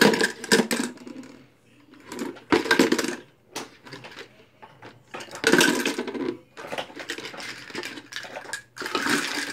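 Metal baby food jar lids clattering as they are dropped into a cardboard oatmeal canister and land on the lids already inside, in repeated bursts a couple of seconds apart.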